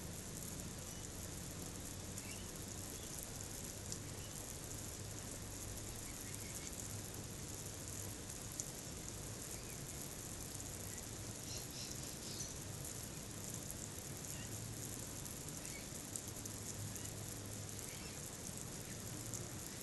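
Steady high-pitched insect chorus, crickets, with a few faint short bird chirps scattered through and a low steady hum underneath.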